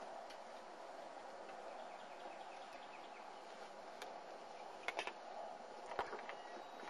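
Faint, steady outdoor background noise, with a few short clicks about five and six seconds in.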